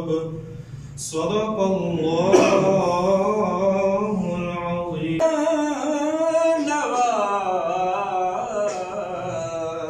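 A man's voice chanting a prayer in a slow melody over a microphone, with long held notes and a short pause about a second in.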